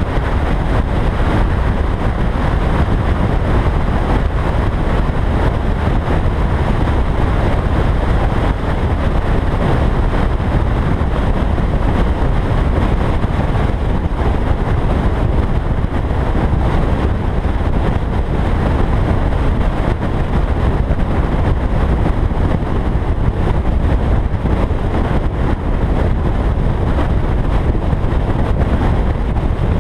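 Car driving at steady cruising speed on an open road: a continuous heavy rumble of wind and road noise with no clear engine note and no changes.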